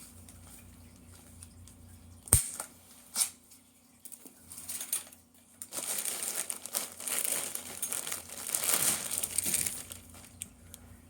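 Two sharp snips of diagonal cutters cutting zip ties, the first the loudest, then packaging padding crinkling and rustling for about four seconds as it is pulled off a new balance bike.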